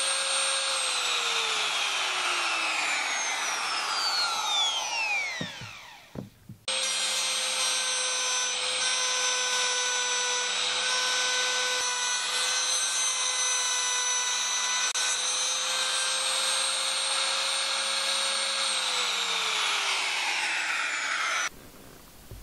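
Electric trim router running with a steady high whine while cutting a groove in a wooden block. About a second in its pitch falls as the motor winds down; near seven seconds it is suddenly back at full speed and runs steadily, then winds down again near the end and cuts off suddenly.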